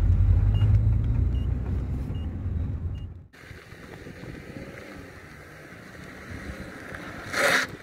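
Engine and road rumble inside a small Renault car's cabin, with a faint tick repeating a little faster than once a second. It cuts off sharply about three seconds in to a quieter outdoor hiss. Near the end comes one short, loud sniff as a line of powder is snorted through a rolled tube.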